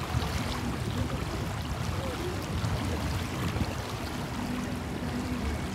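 Small waves lapping steadily on a sandy river shore, with a low rumble of wind on the microphone.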